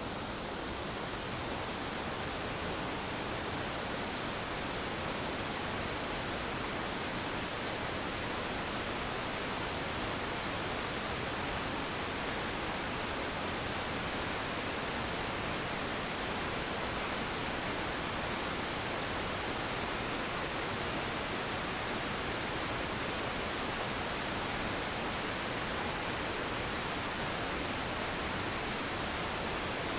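Waterfall rushing, a steady, even hiss-like roar of falling water that does not change.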